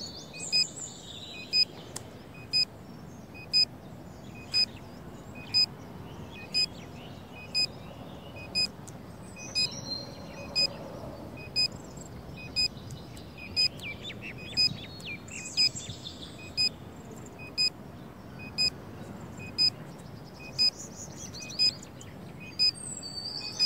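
Short, high electronic beep repeating steadily once a second as a countdown tick, with birds chirping now and then in the background.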